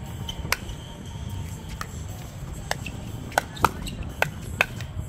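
Pickleball paddles popping against a plastic ball in a rally: a string of sharp, short pops, irregularly spaced and coming quicker in the second half, over a low steady background hum.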